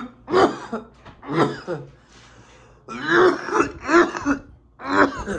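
A man coughing and clearing his throat in a string of about five coughs roughly a second apart, the reaction to a deep pull from a disposable cannabis-wax vape.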